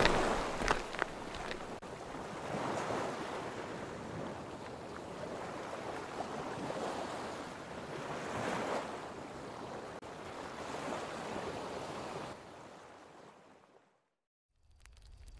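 Ocean waves washing in and drawing back in slow swells, fading out near the end.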